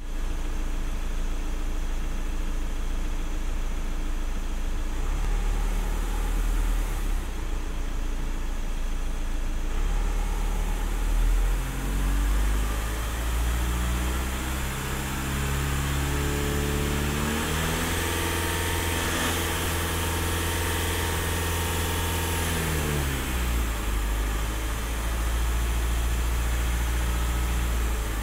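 2013 Volkswagen Passat engine running in park, idling and then brought up to about 2,000 rpm: the pitch climbs gradually, holds steady for several seconds, then falls back. A faint thin whine rides on top while the revs are held up.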